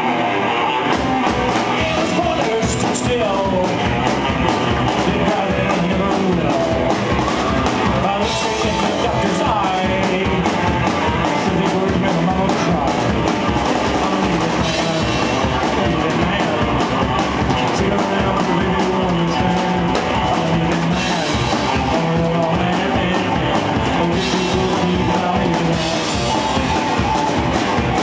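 Live rock-and-roll band playing: upright bass, electric guitar and drum kit, loud and continuous.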